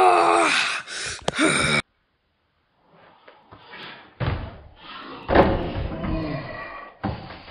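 A boy yelling loudly, then thumps and rattling of an over-the-door mini basketball hoop banging against a wooden door as he dunks and hangs on the rim, the loudest thump a little after five seconds in.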